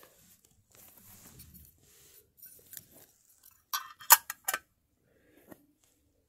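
Small metal tin being handled, giving a quick cluster of four or five sharp metallic clicks about four seconds in, after faint rustling.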